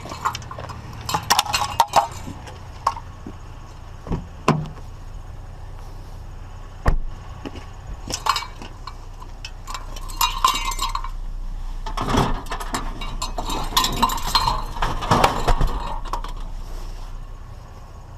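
Scrap being handled and loaded: a series of irregular metallic clinks, knocks and rattles, busiest near the end, over a low steady hum.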